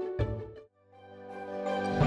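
Instrumental background music: one last plucked note about a fifth of a second in dies away to a brief near silence, then a new piece fades in and grows louder toward the end.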